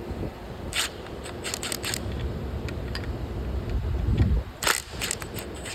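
Sharp metal clicks and scrapes of a hand tool loosening the 8 mm bolts of the timing chain tensioner on a Polaris Ranger 1000 SOHC engine. The clicks come in short runs, with a dull thump just after four seconds in.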